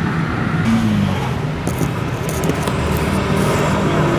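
Steady low rumble of a motor vehicle engine running nearby, with a brief falling tone about a second in.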